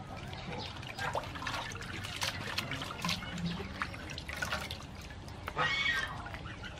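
Hands rinsing and squeezing shelled clam meat in a metal basin of water: irregular splashing and dripping as the meat is rubbed and lifted out in handfuls, with a louder splash near the end.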